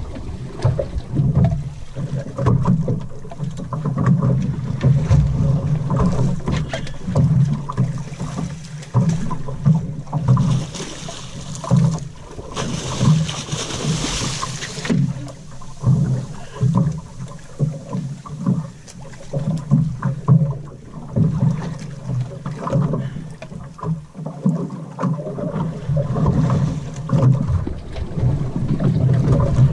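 Wind buffeting the microphone and water slapping against a small fishing boat's hull, an uneven low rumble throughout. From about ten seconds in, for four or five seconds, a loud burst of splashing as the hooked yellowfin tuna thrashes at the surface beside the boat.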